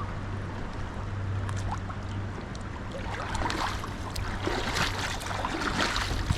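Fast river water rushing and splashing around inflatable tubes, with many small splashes from about three seconds in, over a steady low rumble.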